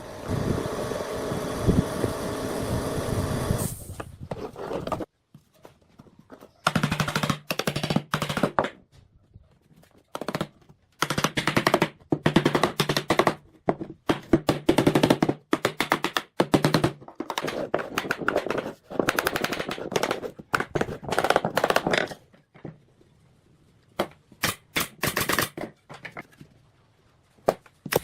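Power tool running in repeated bursts of a second or two, each a rapid rattling, after a steady machine whine over the first four seconds.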